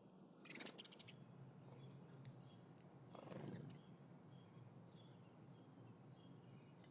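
Faint, scattered short bird chirps, with a brief rattle of clicks about half a second in and a soft rustle a few seconds in.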